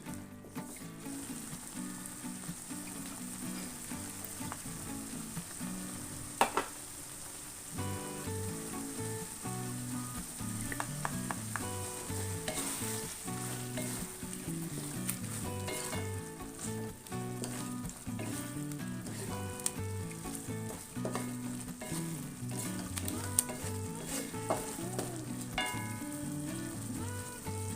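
Eggs frying and sizzling in a pan while they are stirred, with a couple of sharp clacks against the pan.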